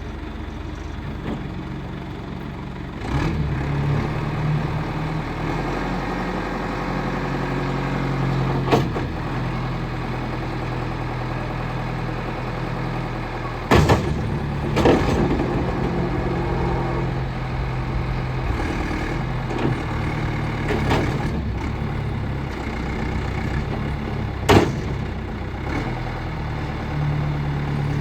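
John Deere 310D loader backhoe's diesel engine running, picking up speed about three seconds in, with several sharp metallic clanks scattered through.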